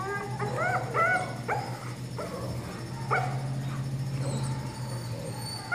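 Young Belgian Malinois puppy giving a quick run of short, high yips and whines, about five in the first second and a half and one more about three seconds in, over a steady low hum.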